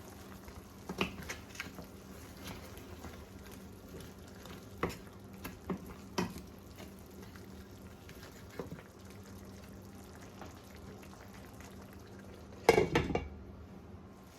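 Goat meat and seasonings sizzling and bubbling in a pot on high heat as the liquid cooks down, with a utensil knocking against the pot now and then. About 13 seconds in comes a louder brief clatter.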